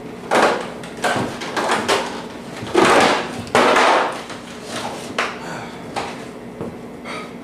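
Irregular knocks, clatter and rustling from a person moving about close by, with the loudest noisy bursts about three and four seconds in, over a faint steady hum.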